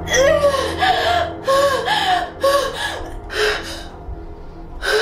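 A young woman's gasping, pained cries: a string of about six short, breathy, quavering cries in quick succession, weakening after about four seconds, then one more sharp gasp near the end. She is in pain after taking a drink meant to end her pregnancy.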